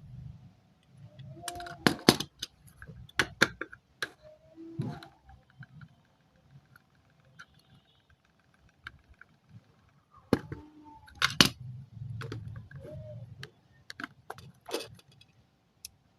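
Sharp clicks and clinks of small hard objects being handled, scattered unevenly with a loud cluster about two seconds in and another about eleven seconds in, with a few short squeaks and a low hum that comes and goes.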